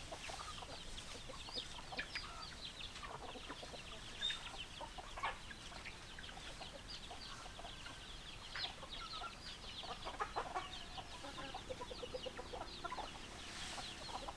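A flock of chickens clucking, with many short high chirps throughout and a quick run of clucks near the end.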